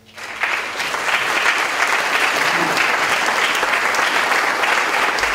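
Audience applauding, swelling in the first half second and then holding steady.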